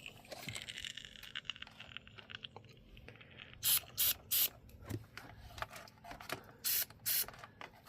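Aerosol can of Lubegard Kool-It evaporator foam cleaner spraying through an extension straw into the HVAC evaporator housing. A faint hiss comes first, then several short, louder spurts of spray about halfway through and near the end.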